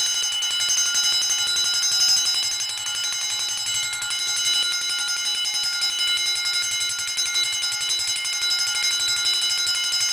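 Emdeko model 115-A wind-up heat detector bell, a 6½-inch gong, ringing continuously and very loud under rapid, evenly spaced clapper strokes, with a bright ring of several high overtones that holds steady.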